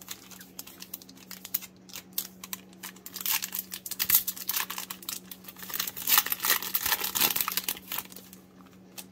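Foil wrapper of a 2020 Donruss Optic trading-card pack being torn open and crinkled by hand, a dense crackling that is loudest from about three to eight seconds in.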